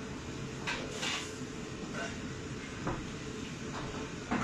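Busy commercial kitchen: a steady rush of the extractor hood ventilation, broken by several sharp clatters and knocks of utensils and cookware.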